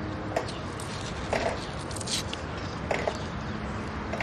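A kitchen knife cutting and scraping at an onion as it is peeled by hand: several short, crisp cuts about a second apart.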